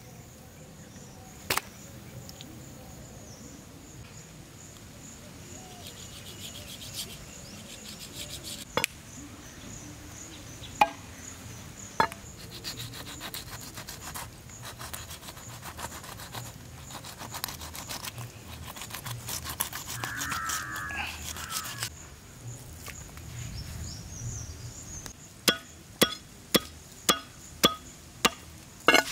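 Chef's knife working through raw stingray flesh on a wooden chopping block: occasional single knocks of the blade on the wood, then near the end a quick run of about eight chops, two or three a second, as the fillet is cut into pieces.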